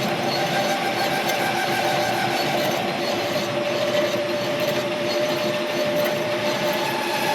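Metal lathe turning a motorcycle-type front wheel hub, with its cutting tool machining the built-up bearing seat. The machine runs steadily with a continuous cutting hiss and a few steady tones that waver slightly in pitch.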